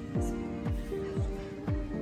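Background music with a steady beat of deep drum thumps about twice a second over held chords.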